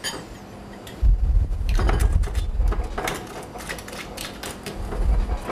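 Hand grinder being twisted over the food: a run of quick grinding clicks over a low rumble, starting about a second in.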